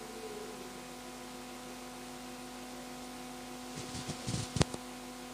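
Steady electrical mains hum through the microphone and sound system, with a few soft thumps and one sharp click shortly before the end.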